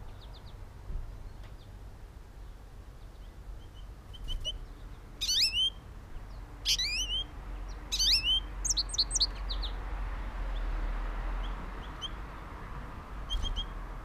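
Wild songbirds chirping and singing: a few short chirps, then four quick phrases of sweeping high notes in the middle, and a couple of chirps near the end.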